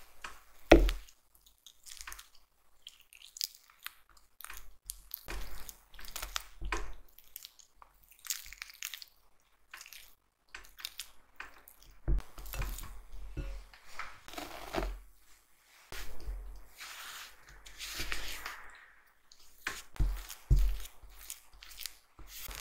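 Softened butter being pressed and creamed with a spatula in a glass bowl: irregular squishing and scraping strokes against the glass. A sharp knock about a second in.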